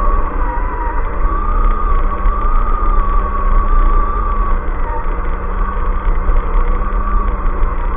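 Onboard sound of a radio-controlled scale crawler truck driving: its electric motor and gearbox whine at a fairly steady pitch that wavers a little with throttle, over a constant low rumble.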